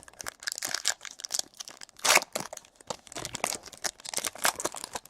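Trading-card pack wrapper crinkling and tearing open, with a dense run of irregular crackles as the cards are handled.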